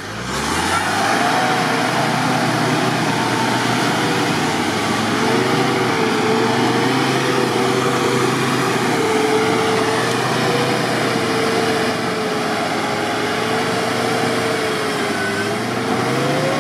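Off-road vehicle's engine running under load, its pitch rising and falling as the throttle changes, picking up about half a second in.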